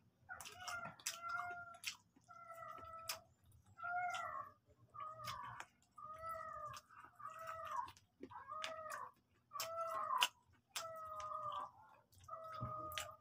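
A cat meowing over and over, about a dozen short meows roughly one a second, with crunchy chewing clicks of crispy fried chicken between them.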